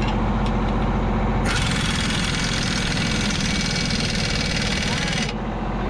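Pneumatic impact wrench hammering on a large bolt, starting about a second and a half in, running about four seconds and stopping, over a steady low engine rumble.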